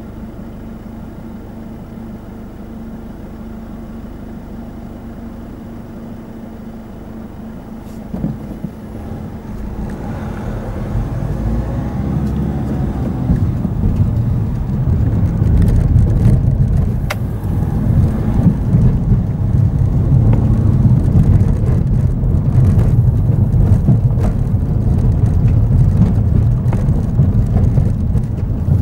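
Car engine idling steadily, a short click about eight seconds in, then the car pulls away and drives on, the engine and tyre noise growing louder over several seconds into a steady rumble on a rough road surface.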